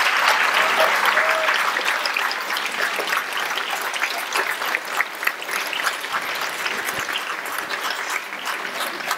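Audience applauding, the dense clapping slowly thinning and growing quieter toward the end.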